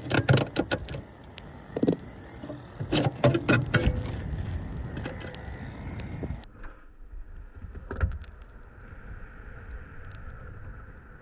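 Clattering and scraping of a lint-clogged dryer vent screen being handled and moved, with repeated sharp knocks. About six seconds in it cuts to a quieter steady hiss with a single knock.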